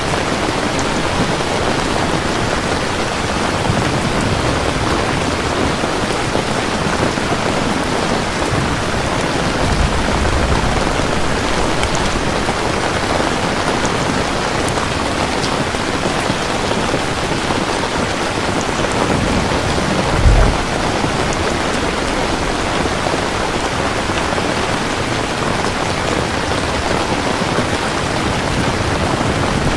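Steady rain falling with thunder rumbling low, the loudest being a short burst of thunder about two-thirds of the way through.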